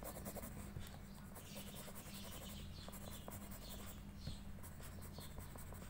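Graphite pencil scratching on paper in short back-and-forth hatching strokes as an area is shaded, over a steady low hum.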